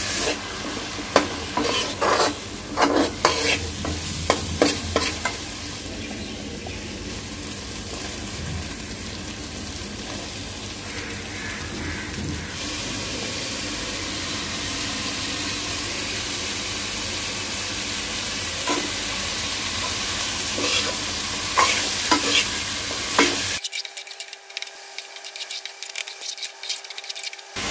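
Potato, mushroom and broccoli curry sizzling in a metal pan, with a metal spatula scraping and knocking against the pan as it is stirred. The stirring clicks come thickest in the first few seconds and again near the end.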